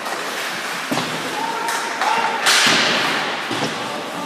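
Ice hockey play in a rink: several sharp knocks and thuds of puck and sticks striking the boards and ice. The loudest hit comes about two and a half seconds in and echoes through the arena.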